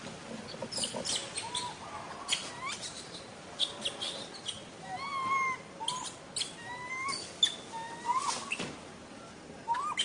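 Baby macaque crying with a string of short, squeaky coo calls, some rising and some falling in pitch, with sharp clicks between them.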